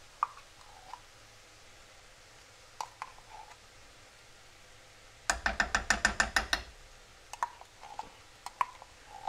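A spoon scraping and knocking inside a small metal tomato-paste can. A few scattered clicks come first, then a quick run of about a dozen metallic knocks over about a second and a half, then a few more clicks.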